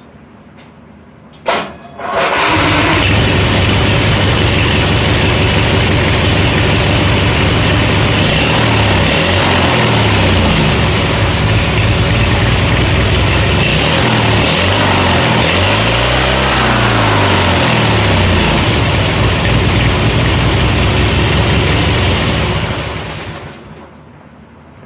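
Vehicle engine heard through its exhaust: it catches about two seconds in and runs loudly at idle. It is blipped up and back down twice in the middle, then shuts off near the end.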